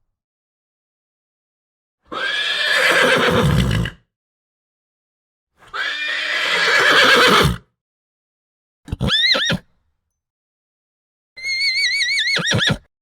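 Horse neighs and whinnies: four separate calls with silence between, two rough, loud neighs of about two seconds each, then a short rising whinny, and near the end a high, quavering whinny that drops off.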